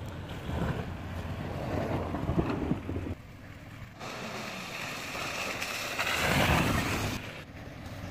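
Toyota Land Cruiser's 4.7-litre V8 engine running on a snowy track, with wind rushing on the microphone. The sound changes abruptly a few times, and a louder rushing surge comes about six seconds in.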